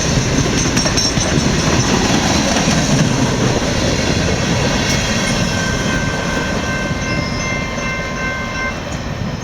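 Freight train cars rolling steadily past on the rails, easing off a little near the end, with a faint high-pitched wheel squeal in the second half.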